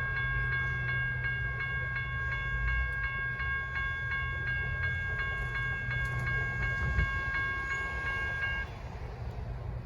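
Railroad crossing signal bells ringing in a fast, steady rhythm over the low rumble of a Siemens-Duewag U2A light rail train passing. The bells stop near the end as the crossing clears.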